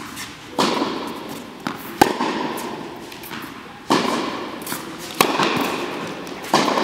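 Tennis rally: sharp pops of rackets striking the ball, with lighter ball bounces between them, every second and a half or so, each ringing on in the echo of a large indoor court hall.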